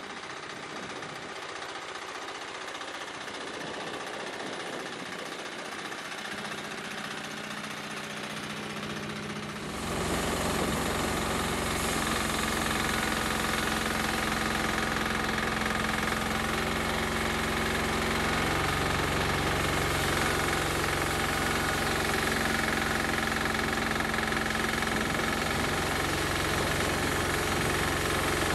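Homemade bandsaw mill's 10-horsepower diesel engine running, kept at no more than half throttle while the new engine is run in. About ten seconds in the sound steps up louder and stays steady as the band blade cuts along a log.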